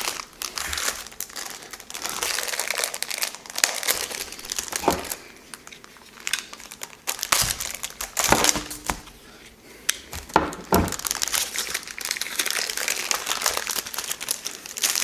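Packaging being crinkled and torn open around a LEGO set's instruction booklet, an uneven rustle with sharp crackles and clicks that eases off for a while partway through.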